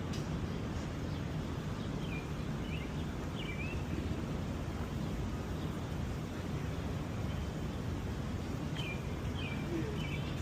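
Steady low rumble of city street ambience, with two short runs of small bird chirps, a couple of seconds in and again near the end.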